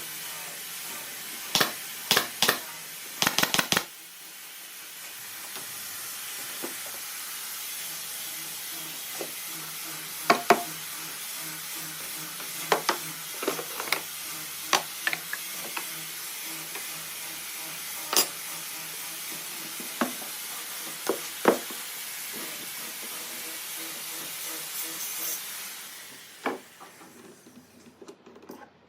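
Steady hiss of compressed air, with scattered sharp knocks and clicks. The hiss fades out about 26 seconds in.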